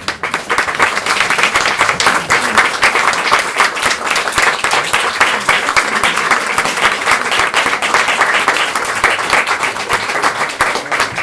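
Audience applauding, many people clapping at once. It starts suddenly and keeps up at an even level.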